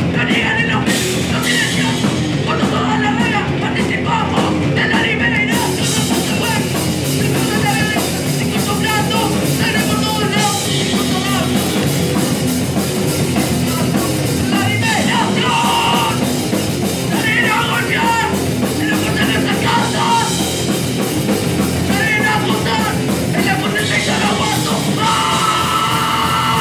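Hardcore punk band playing live, with distorted guitar, bass and drums under a vocalist yelling into the microphone. The sound turns brighter about five seconds in, and a note is held near the end.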